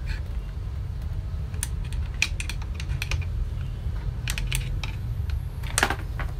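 Scattered small clicks and taps of a gear being worked loose by hand from the motor of an opened Braun Multiquick kitchen machine, with a steady low hum underneath.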